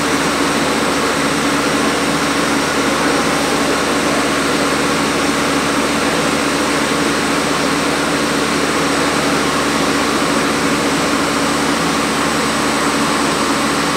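Blown film extrusion line running steadily: a constant mechanical hum over an even hiss.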